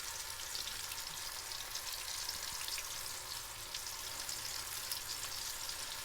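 Battered fish strips deep-frying in hot oil: a steady sizzle with fine crackling.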